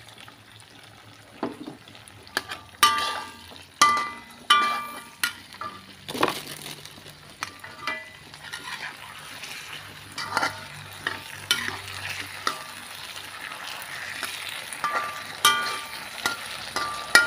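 A metal spatula scrapes and knocks against a wok, each stroke ringing briefly, as chicken is stirred through a sauce thickened with cornstarch slurry. A steady frying sizzle runs underneath and grows louder about halfway through.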